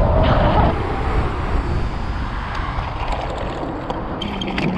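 Wind rushing over the microphone as the Nanrobot LS7+ dual-motor electric scooter rides fast, with a steady motor whine that stops under a second in. Near the end, rattling and clicking as the scooter goes over rough, stony ground.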